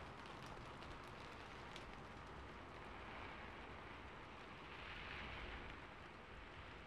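Faint ambience recording of rain falling on a rooftop: a steady, even patter with a few sharp ticks in the first two seconds, swelling slightly about five seconds in.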